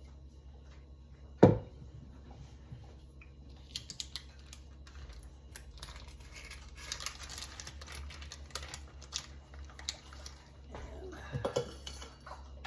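Kitchen utensils and dishes: one sharp knock about a second and a half in, then several seconds of small clicks and scraping as roasted tomatoes are moved into the pan of vegetables. A steady low hum underneath.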